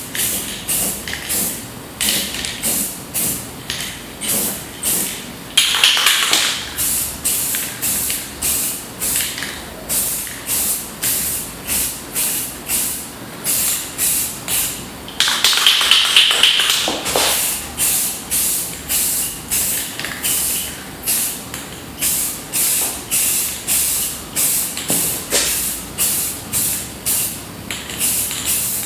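Aerosol spray can of Rust-Oleum acrylic enamel spraying in short, quick bursts, about two a second, laying a first coat of paint on a wheel. Two longer, louder sprays come about six and sixteen seconds in.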